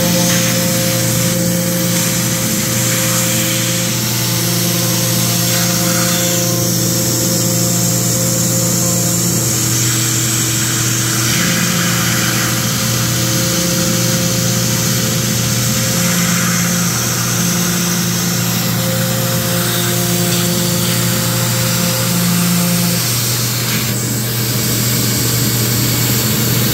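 AnoleX 4030-Evo Ultra CNC router engraving extremely soft wood with a fine-tipped bit: the spindle runs steadily while the stepper motors hum in several steady tones that switch on and off every few seconds as the axes move. A vacuum runs underneath as a steady hiss.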